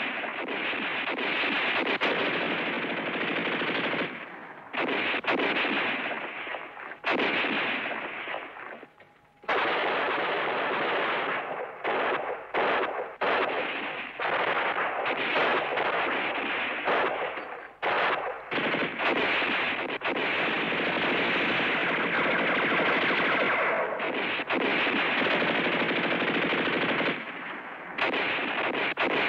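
Gunfire on an old film soundtrack: long, dense bursts of machine-gun fire with rifle shots, breaking off briefly a few times and starting up again.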